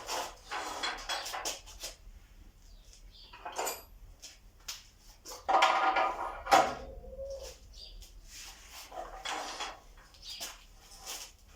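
Pieces of metal clattering and clinking as they are handled, with a louder ringing clang about six seconds in.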